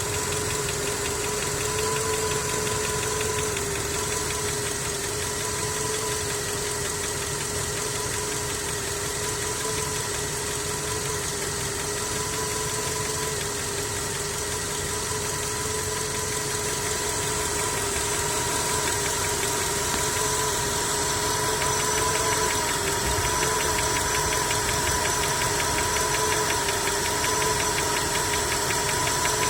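Skoda's 1.6 BSF petrol engine running with a fast, regular knock, the engine knock under investigation, over a steady whine.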